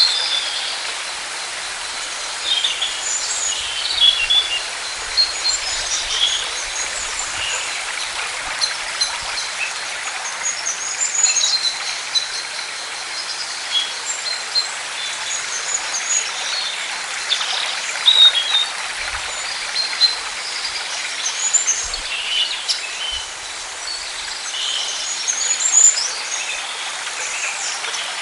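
Many small birds chirping and singing in short, scattered calls over a steady rush of flowing water.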